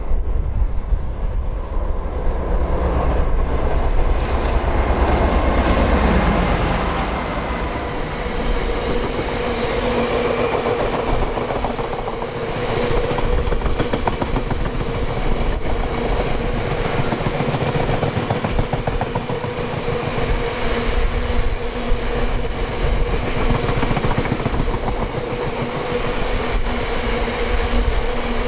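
A train passing at speed on the main line, its wheels clattering rapidly over the rails with a steady hum, after a falling pitch about five seconds in. Wind buffets the microphone at the start.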